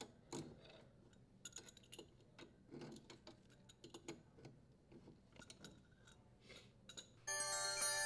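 Faint, scattered metallic clicks and ticks of a wrench and fingers turning a dishwasher's threaded leveling leg in its metal bracket. About seven seconds in, a steady chime-like tone sets in.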